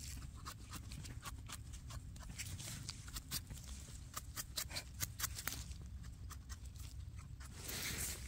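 Small knife and brush cleaning the soil off a freshly cut porcini mushroom: a quick run of short scraping strokes, then a longer rustle near the end.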